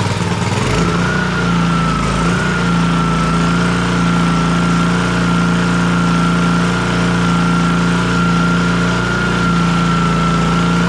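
Honda GCV160 single-cylinder engine on a pressure washer running at a steady speed just after a pull start on choke. It picks up and settles in the first second, then runs evenly without surging.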